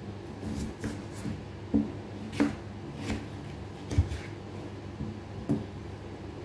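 Kitchen knife cutting through peeled raw potato and knocking on a plastic cutting board, about five separate sharp knocks at uneven intervals.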